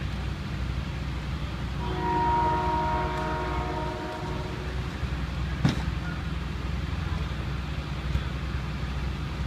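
Steady low rumble of idling emergency vehicles, with a multi-tone horn chord of several steady notes sounding for about three seconds from about two seconds in. A single sharp click near the middle.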